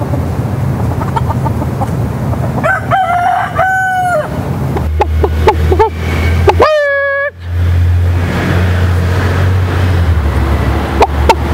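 Roosters crowing: a long two-part crow about three seconds in and a second crow about seven seconds in, with shorter calls around them. A steady low rumble runs underneath from about the middle on.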